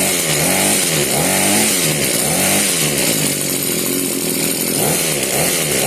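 Echo HC2020 hedge trimmer's small two-stroke engine running, its speed rising and falling over and over, about once a second. It will not hold an idle without the trigger held, and its blades are struggling to move.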